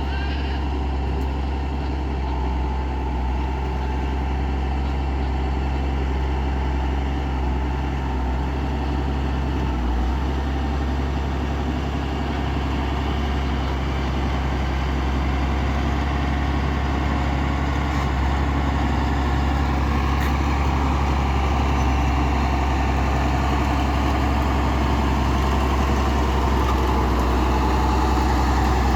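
Caterpillar 140G motor grader's diesel engine running steadily with a deep drone, growing a little louder toward the end.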